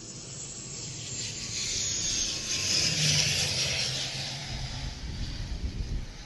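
ATR 72-600 turboprop airliner landing close by: a rushing noise swells to a peak about three seconds in and then fades, over a low hum, with a low rumble near the end.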